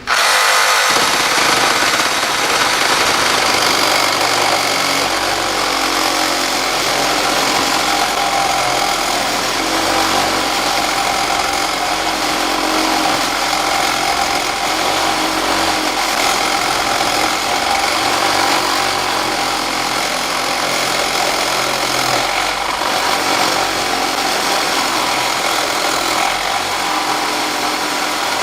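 Makita 12V max CXT cordless reciprocating saw cutting through thick 10-gauge aluminium pipe, loud and steady, starting abruptly.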